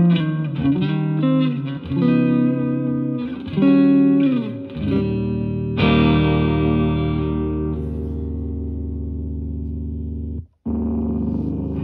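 Single-coil Stratocaster-style electric guitar through a Yamaha THR10C modeling amp on its Brit Blues model. It plays bent, vibrato single-note lead lines, then strikes a chord about six seconds in and lets it ring out and fade. After a brief cut near the end, the guitar resumes on the amp's Mini model.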